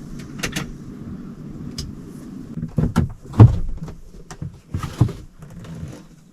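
Scattered clicks and knocks with one heavy thump about three and a half seconds in, over a low steady hum that fades after the first two seconds.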